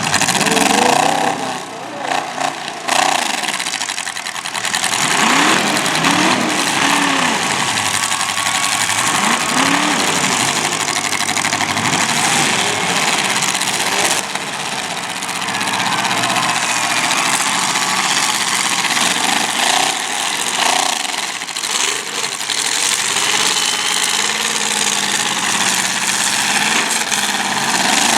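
Demolition derby cars' engines revving up and down over and over, several at once, over a loud steady din.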